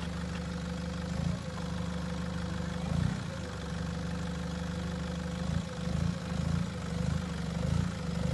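Nissan Patrol GR's engine running at low revs as the 4x4 crawls over a rutted gully, swelling briefly with throttle about a second in, at three seconds and several times in quick succession near the end.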